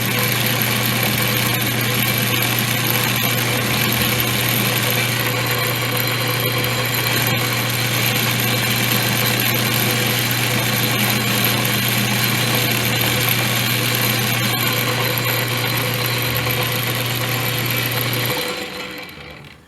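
Metal lathe running steadily, turning down hex nuts threaded on a bolt, with a constant low hum under a dense hiss of machining. About 18 seconds in it is switched off and the sound dies away over a second or so.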